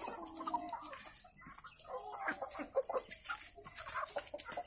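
A flock of chickens clucking in short calls, with scattered light ticks.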